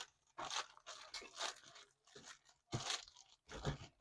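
Slime being pushed into a plastic zip-top bag: several short, irregular rustles of the plastic bag being handled.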